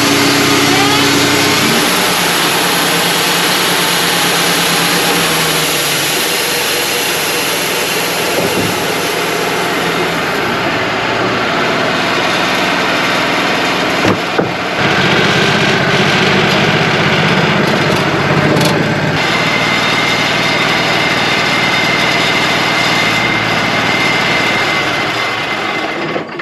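Wood-Mizer LT35 portable sawmill running, its engine and band blade sawing through a white pine log. The noise stays steady and loud, then cuts off suddenly at the very end.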